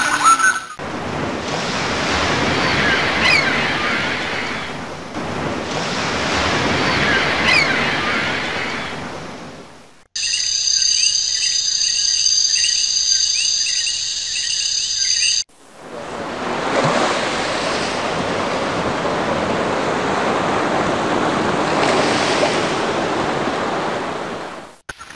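Sound-effect track: a rushing noise that swells and fades in slow surges, like surf. About ten seconds in it cuts to some five seconds of high, shrill, steady buzzing with fine ticking, then the surging rush returns.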